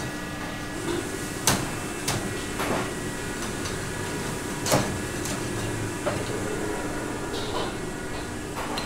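Commercial kitchen background: a steady machine hum, like an exhaust hood or fan, with scattered sharp clicks and knocks of things being handled. The loudest knocks come about a second and a half in and just under five seconds in.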